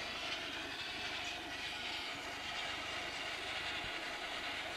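Bigjigs wooden toy train, locomotive and carriages, rolling steadily along plastic track, its wheels making a continuous rolling rattle.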